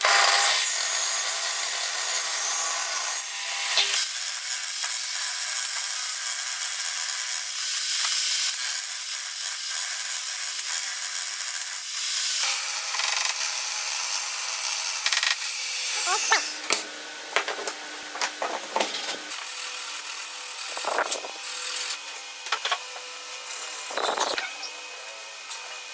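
Benchtop table saw running and ripping a board into a thin strip, a steady high-pitched saw noise. About 15 seconds in the saw stops, and short scraping strokes and handling sounds follow as a board is marked out with a pencil and marking gauge.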